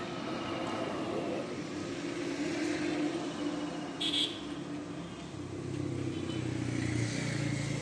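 Road traffic going past: motor vehicle engines running, their pitch shifting as they pass, with a short high chirp about four seconds in.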